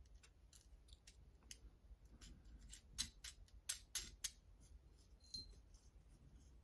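Faint, irregular clicks and ticks of small 3D-printed plastic case parts being handled and fitted together by hand, coming quickest around the middle.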